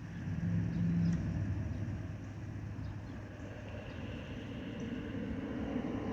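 Boeing 757-251 airliner's Pratt & Whitney PW2037 jet engines, heard as a low rumble that swells suddenly at the start, with a higher whine growing louder over the last few seconds.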